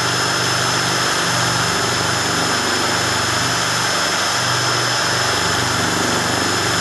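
Cordless drill running steadily at constant speed, spinning a mixing rod to stir catalyst into polyester fibreglass resin, with a thin, steady high whine from the motor.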